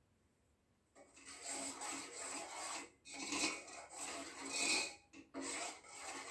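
Steel spoon scraping around the bottom of a stainless steel saucepan of sugar syrup, starting about a second in and going in three bouts with short breaks.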